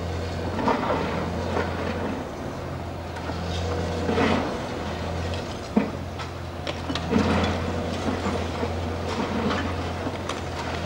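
High-reach demolition excavator's diesel engine running steadily, with irregular crunching and clattering as its crusher jaw breaks up concrete and debris falls. There is a sharp crack about six seconds in.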